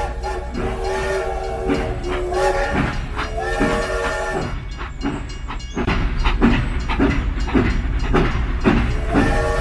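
Repeated blasts of a multi-tone horn, several pitches sounding together like a train horn. A steady rhythmic thumping beat joins in about six seconds in.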